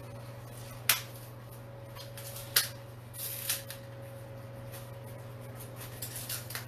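Cauliflower leaves being snapped and ripped off the head by hand. There are two sharp snaps about one second and two and a half seconds in, then crisp leafy rustling, and a quick cluster of small cracks near the end.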